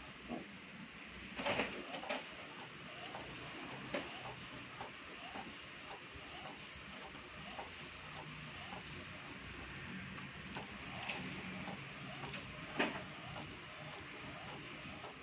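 Epson L1300 inkjet printer printing: the print head carriage shuttles back and forth over the steady hum of the mechanism, with a regular tick about twice a second and a few sharper clicks.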